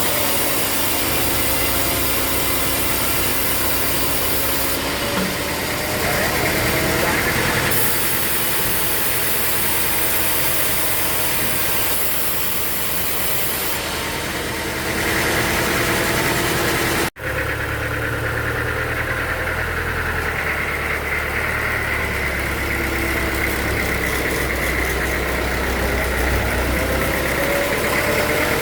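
Sawmill machinery running steadily, driven by an engine. The sound drops out for an instant about seventeen seconds in and comes back changed, as at a cut.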